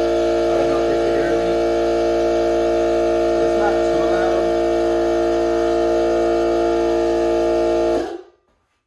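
DeWalt cordless 2.5-gallon air compressor running with a loud, steady hum, which stops abruptly about eight seconds in.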